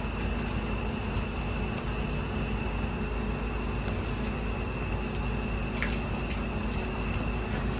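Steady outdoor insect chorus, crickets trilling continuously, with one brief high chirp about six seconds in.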